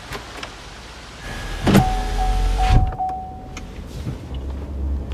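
A car's power window whirring shut, ending abruptly with a knock about three seconds in. Then the low rumble of the car driving.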